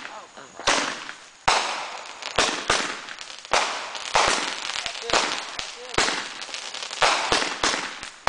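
Consumer fireworks going off in quick succession: about a dozen sharp bangs, roughly one every half second to second, each trailing off in a hiss.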